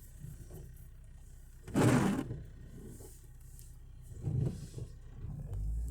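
Steady low rumble of a car's engine and road noise heard inside the cabin, with a loud whooshing burst about two seconds in and a fainter one a little past four seconds.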